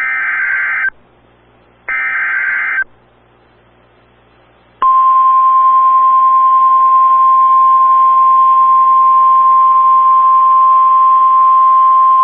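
Emergency Alert System signal from NOAA Weather Radio: two short bursts of warbling SAME header data tones about a second apart, then, about five seconds in, the steady single-pitch 1050 Hz weather-radio alert tone that sounds until the end. Together they announce a severe thunderstorm warning.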